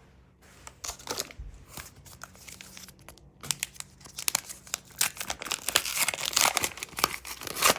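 Wrapper of an AFL Teamcoach trading card pack being torn open and crinkled: irregular crackling that starts about half a second in and grows louder and denser in the second half.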